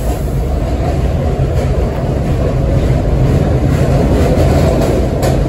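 R32 New York City subway train rolling past the platform: a steady low rumble of wheels and running gear, with a few faint clicks.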